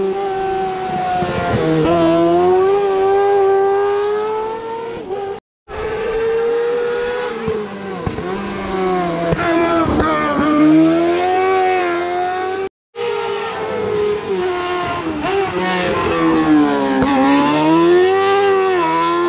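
Rally cars running hard on a timed stage, the engine pitch climbing and dropping again and again as they accelerate, change gear and lift off for corners. The sound cuts off abruptly twice, splitting it into three separate passes.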